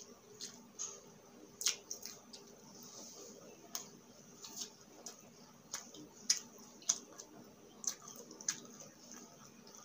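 Close-up chewing of crispy fried egg chicharon chips: irregular sharp crunches and mouth clicks, about a dozen, unevenly spaced.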